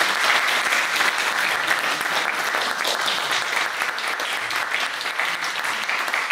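Audience applauding: a sustained round of clapping from many people that gradually dies down near the end.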